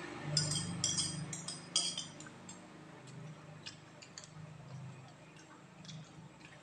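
Metal spoon clinking and scraping against a glass plate: a quick run of ringing clinks in the first two seconds, then a few sparse light taps, over a faint steady low hum.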